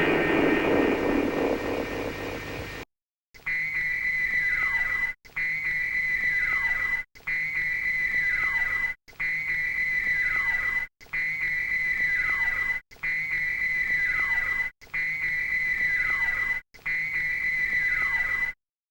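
Electronic intercom-light signal effect from the Gel Shocker base: a steady high tone with a falling pitch sweep at the start of each cycle, repeated eight times about every two seconds with brief gaps. Before it, a dense electronic command-room ambience cuts off about three seconds in.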